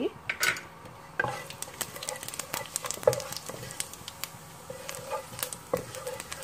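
Cumin and fenugreek seeds crackling and sizzling in hot oil with whole spices, with a wooden spatula stirring and scraping the pot: the tempering stage (tadka) of the dish. It sounds like a stream of quick, irregular pops and clicks.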